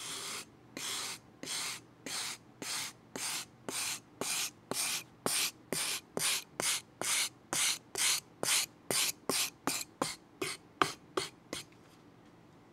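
Steel-wire file brush scrubbing along the teeth of a flat metal file, a dry wiry scrape on each stroke. About thirty strokes, each starting with a click, getting shorter and quicker toward the end before stopping.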